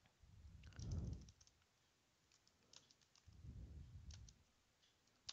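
Faint computer-keyboard keystrokes, a few scattered clicks at a time, while code is typed. Two soft low rumbles, near one second and near four seconds in, are the loudest sounds.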